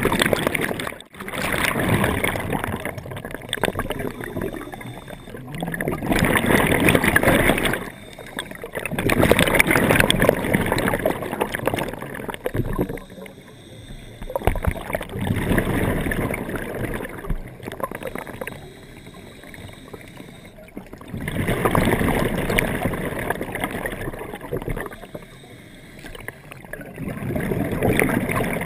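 A scuba diver's regulator breathing heard underwater through the camera's waterproof housing: bursts of exhaled bubbles lasting two or three seconds, coming back every several seconds, with quieter inhalations between.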